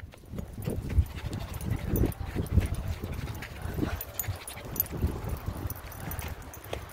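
Miniature schnauzer making low, irregular play noises as it romps in the grass.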